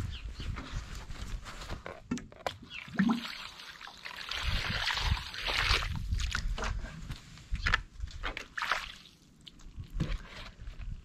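Water from a watering can pouring and splashing into a shallow terracotta bird bath, loudest in the middle, with sloshing as the dish is handled near the end.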